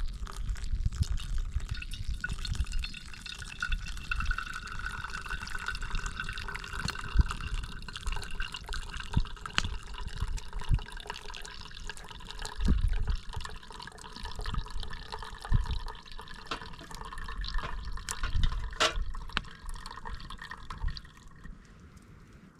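Liquid flowing steadily, with occasional low knocks.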